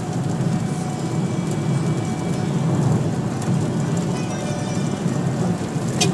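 Steady low rumble of a moving vehicle's engine and road noise heard from inside the cabin, with faint music playing.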